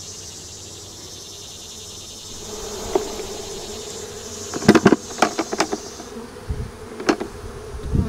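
Honeybees buzzing steadily around an opened hive, the hum growing stronger after a couple of seconds. Several sharp wooden knocks and clicks come from a brood frame being handled and lifted out of the hive box, most of them in a cluster around the middle.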